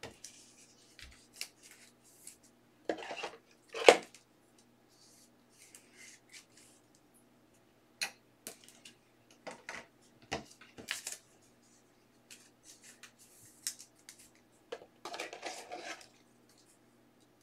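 Trading cards in hard clear plastic holders being handled and set in stands on a table: scattered light clicks and clacks with brief rustling of the cards, the loudest clack about four seconds in.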